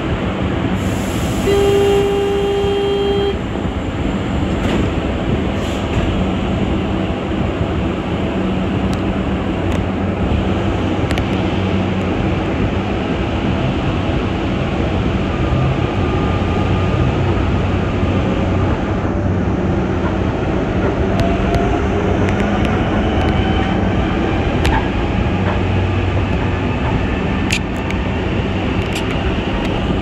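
Rubber-tyred Mexico City Metro Line 2 train running, a steady rumbling noise with a low hum. A short steady beep sounds about two seconds in, and a whine rises in pitch during the last several seconds.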